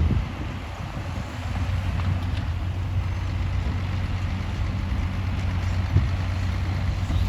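Diesel engine of heavy earthmoving equipment running with a steady low drone. It eases off briefly near the start and picks up again about a second and a half in.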